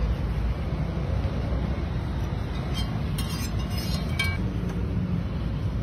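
Steady low rumbling noise, with a few light clinks between about three and four seconds in.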